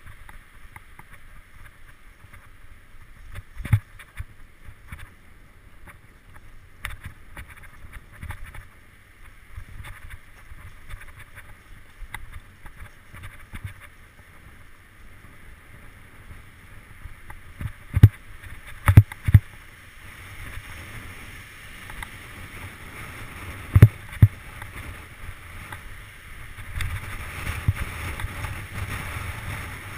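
Mountain bike riding fast down a rough dirt forest trail: steady rumble of knobby tyres on dirt, with rattling and several hard knocks as the bike hits roots and rocks, the loudest three a little past the middle and two more near the end. The rumble grows louder in the last few seconds.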